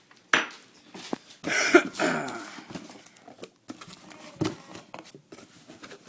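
Packaging being handled as a parcel is unpacked: irregular rustling with scattered knocks and clicks, loudest in a rustling stretch about a second and a half in.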